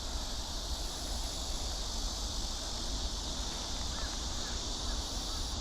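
Steady, unbroken high-pitched insect chorus over a low outdoor rumble, with a few faint chirps.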